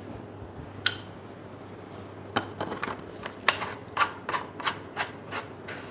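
Handling and mounting an OKM eXp 5500 PentaSense enhancer onto the super sensor: one sharp click about a second in, then a run of about a dozen short clicks and light knocks as the parts are fitted together.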